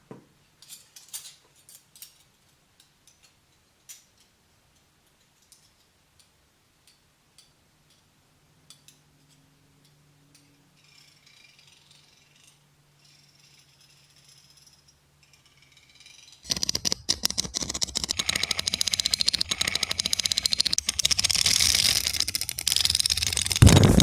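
Mechanical sound effects for Doctor Octopus's robotic tentacles: scattered small clicks and ticks over a faint hum, then about sixteen seconds in a loud, dense, rapid rattling of gears and mechanisms sets in.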